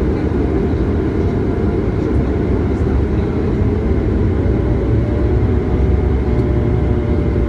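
Cabin noise of a Bombardier Dash 8 Q400 rolling on the ground after landing: a steady, loud drone from its Pratt & Whitney PW150A turboprops and propellers, mixed with rumble from the main landing gear wheels on the concrete. A faint steady whine joins about halfway through.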